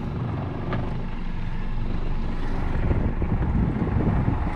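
Wind buffeting the microphone on an offshore fishing boat: a low, uneven rumble that grows stronger about three seconds in.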